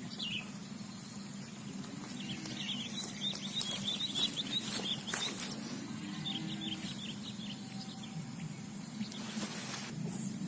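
A bird calling in a quick series of short high notes, twice, over a steady thin high-pitched drone and a low hum, with a few brief rustling noises.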